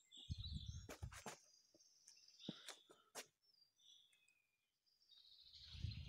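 Woodland birds chirping and singing faintly, with a few sharp clicks in the first half. A low rumble on the microphone comes near the start and again near the end.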